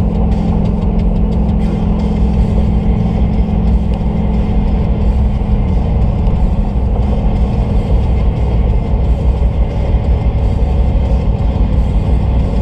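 Dodge Ram 1500 pickup cruising at highway speed, heard from inside the cab: steady road and engine rumble with an engine drone that fades about six seconds in.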